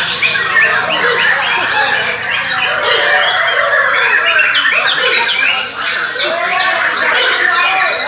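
Bornean white-rumped shamas singing loudly and without pause, competing against one another: a dense run of rich whistles, slurred phrases, rapid chips and harsh notes.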